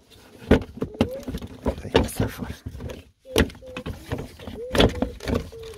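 Plastic wheel-arch liner being pulled back by hand: a run of irregular knocks and clicks with short squeaks as the plastic flexes and rubs against the bodywork.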